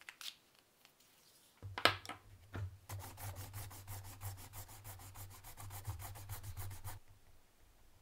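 Eraser rubbed fast back and forth over sketchbook paper, several strokes a second, to remove pencil lines from an inked drawing, stopping suddenly about seven seconds in. A brief, louder handling knock comes just before the rubbing starts.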